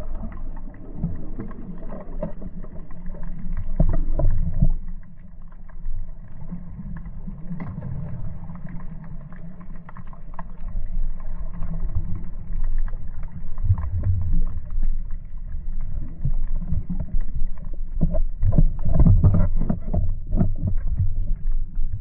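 Muffled underwater rumble and water movement picked up by a camera in a waterproof housing, with scattered knocks of handling noise. The knocks are loudest about three-quarters of the way through.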